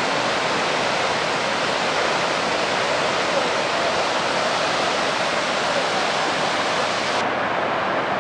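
Steady rush of the Pykara waterfall's water pouring down its rocks. About seven seconds in, the sound suddenly turns duller as its high hiss drops away.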